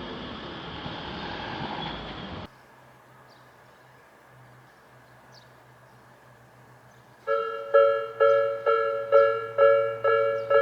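A train running over a railroad crossing, cut off abruptly about two seconds in. After a few seconds of quiet, a Japanese level-crossing warning bell starts, an electronic two-note ding striking about twice a second.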